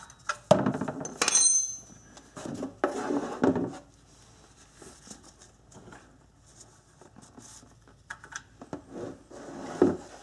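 Metal-on-metal clinks as a wrench and the oil-pan drain bolt are handled, with one bright ringing clink about a second in, followed by quieter handling sounds and a few small clicks near the end.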